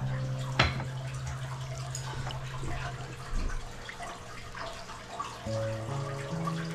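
Steady rain with a patter of drips, under soft background music with long held notes. A sharp knock sounds about half a second in.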